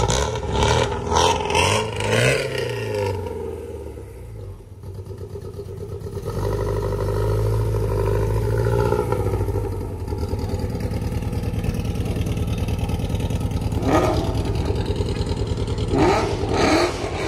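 A car engine running steadily at a low drone, coming in a few seconds in and swelling briefly soon after. Indistinct voices can be heard at the start and near the end.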